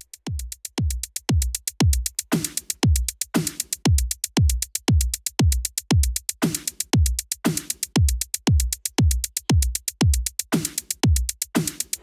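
Electronic background music with a drum-machine beat: a deep kick drum about twice a second with crisp hi-hat ticks between.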